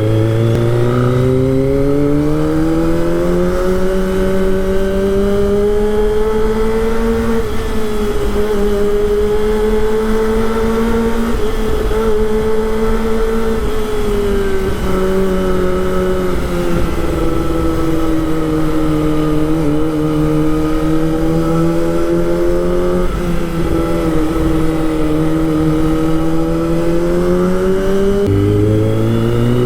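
Kawasaki Ninja ZX-25R's 250 cc inline-four engine running at steady riding revs. The note eases lower through the middle and climbs again near the end, over a steady rush of wind and road noise.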